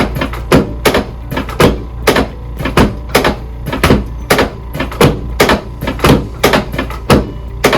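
Chiropractic drop table, its drop sections falling and resetting in a fast, even series of loud clacks, about three a second, over a steady low hum.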